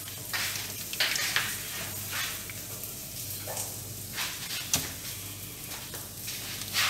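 Raw crab being pried apart and cleaned by hand: wet crackling with several sharp clicks and cracks of shell, over a steady hiss and low hum.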